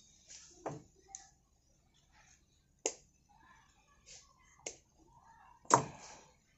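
Four sharp taps and clicks from tools being handled on a workbench next to a disassembled alternator; the last one, near the end, is the loudest.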